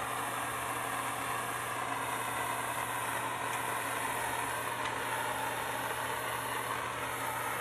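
Plumbing torch flame hissing steadily while a copper pipe fitting is sweated with solder.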